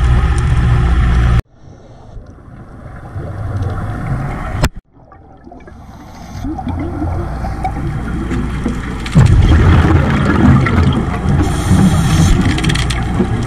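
Underwater ambience picked up through an underwater camera housing: a low rumble with gurgling water. It drops out abruptly about a second and a half in and again near five seconds, each time building back up, and grows louder suddenly about nine seconds in.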